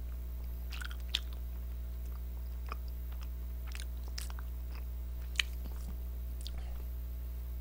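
Mouth noises from chewing a soft chapssal-tteok (glutinous rice cake with pine nuts), heard as a few faint, scattered wet clicks close to the microphone. Under them runs a steady electrical hum.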